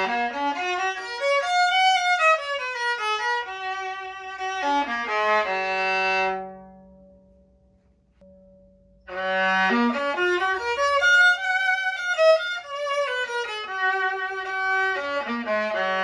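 The Tabolin, an experimental violin with drum-skin panels set into its body and fully weighted, being bowed: a melodic phrase that climbs and then falls back to a low held note, played twice with a pause of about three seconds between. To its maker and players it sounds almost indistinguishable from an ordinary fiddle.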